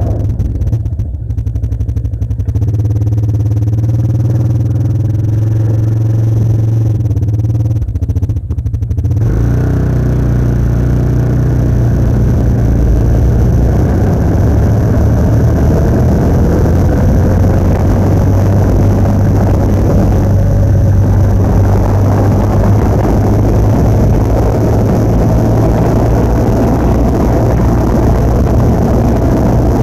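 Motor vehicle engine running under way, a low steady drone whose pitch climbs over the first several seconds; from about nine seconds in a loud rush of wind and road noise joins it and holds steady.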